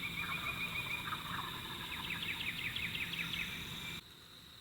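Woodland ambience: a steady high insect drone with songbirds chirping in quick trilled series. The sound drops abruptly near the end.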